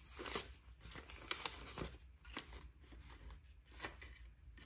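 Paper banknotes rustling as they are counted by hand and slipped into a clear plastic zip pouch: a quiet run of short, irregular crisp rustles and light flicks.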